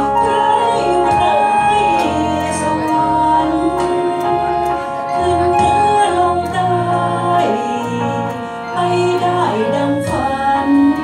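A woman singing a Thai song through a microphone over a karaoke backing track, both amplified through PA loudspeakers.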